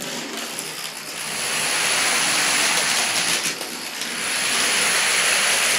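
A large field of plastic dominoes toppling on a wooden floor in a continuous dense clatter, growing louder after about a second and a half.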